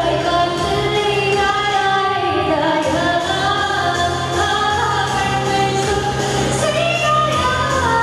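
A woman singing a Tamil pop song live into a handheld microphone, her voice amplified over backing music with long held bass notes.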